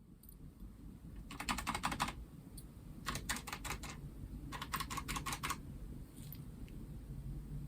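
Typing on a Logitech G915's low-profile GL Tactile mechanical key switches: three quick runs of keystrokes, each lasting under a second.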